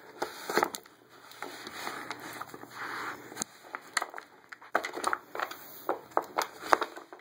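A dog pawing and nosing at a wooden treat-puzzle board: irregular clicks, knocks and scrapes of wooden pieces being pushed and tapped.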